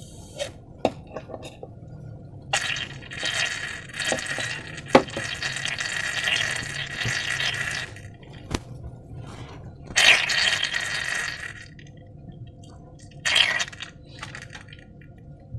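Thick liquid slime ingredients pouring and squelching out of balloons into a container, in three stretches of hissing pour, the first about five seconds long, with scattered small clicks and taps between them.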